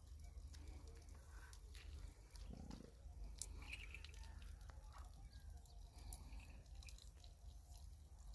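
Near silence: a faint steady low rumble with a few scattered soft clicks.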